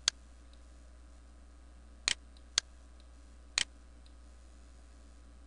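Computer mouse button clicking: a handful of short sharp clicks, some in quick pairs like double-clicks, over a low steady hum.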